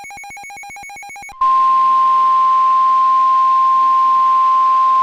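Rapid electronic beeping, about eight pulses a second, stops about a second and a half in. A loud, steady single tone of about 1 kHz starts at once: the 1050 Hz warning alarm tone of NOAA Weather Radio, which signals that a warning message is about to be read.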